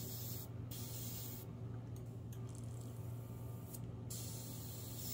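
Airbrush spraying freshly mixed pink gel paint in about four short bursts of hiss, test dots to judge the colour, with a steady low hum underneath.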